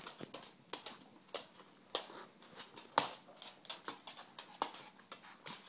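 Dogs' claws clicking and paws tapping on a wooden floor as they walk about, in irregular taps with the sharpest about three seconds in.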